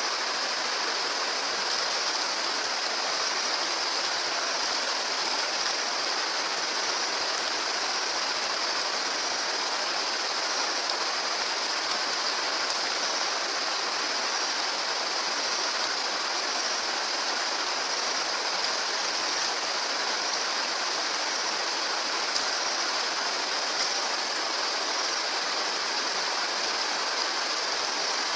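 Steady rush of flowing water, unbroken and even throughout.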